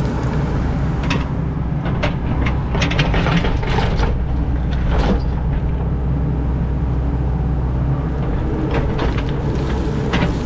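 Tracked excavator's diesel engine running steadily, with scattered clanks and scrapes of the bucket working through rocky ground.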